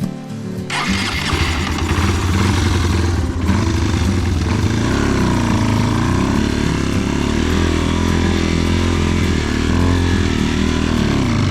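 Trail motorcycle engine running under load, its pitch rising and falling repeatedly from about five seconds in, with a rushing noise coming in just under a second in.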